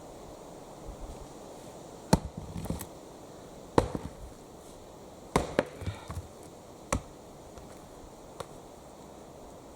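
Axe chopping wood: about six sharp strikes at an uneven pace, the loudest about two and four seconds in, with a few lighter knocks between.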